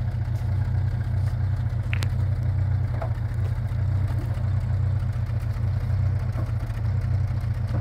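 An engine idling: a steady, even low rumble, with a couple of faint clicks over it.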